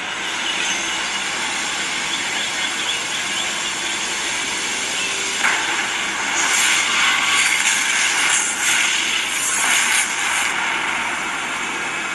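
Explosion and fire sound effects from an animated wine-label app, played through a smartphone speaker: a steady rushing hiss that starts suddenly and surges louder from about five to ten seconds in.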